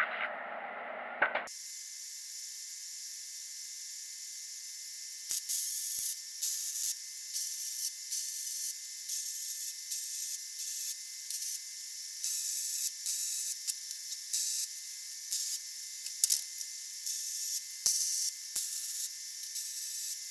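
Hobart Handler 190 gas-shielded MIG welder arc sizzling in many short bursts, each well under a second: a run of small tack and stitch welds on a steel frame, starting about five seconds in. It sounds thin and high, with no low end.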